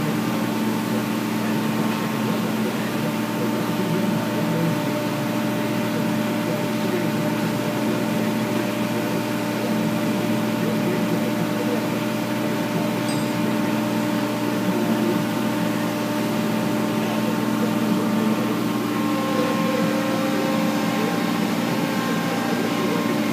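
Skid steer engine running steadily at a constant speed: an even hum that does not change in pitch or level.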